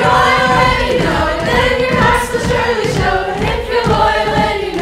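A group of young voices singing a song together as a chorus.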